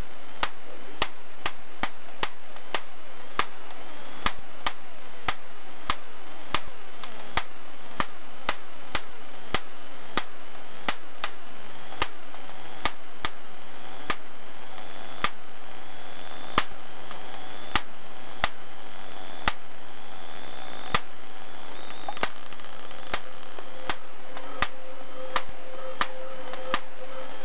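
High-voltage sparks from a DC voltage multiplier snapping onto metallised one-way window film: sharp cracks at irregular intervals, about two a second, over a steady hiss. Each spark blasts some of the film's metal coating off.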